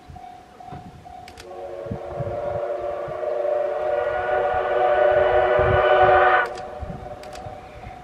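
Steam whistle of the D51 498 steam locomotive sounding one long blast of about five seconds, swelling in loudness and cutting off sharply. Wind buffets the microphone in low thumps.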